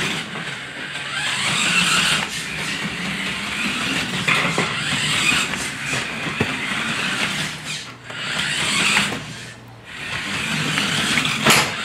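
Remote-control toy quad bike's small electric motor whirring as it drives around, easing off briefly about eight seconds in and again near the end.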